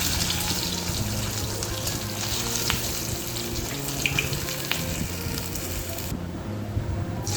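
Pieces of katla fish frying in hot oil in a kadai, a steady sizzle that cuts out abruptly about six seconds in. Soft background music runs beneath it.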